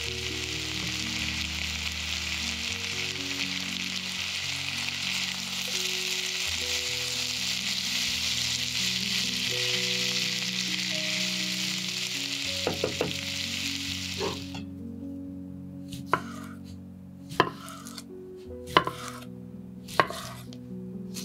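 Chicken, potato and onion pieces sizzling as they fry in a pan, a steady hiss that stops suddenly about two-thirds of the way through. Then a knife slices sausages on a wooden chopping board: sharp chops about one every 1.3 seconds.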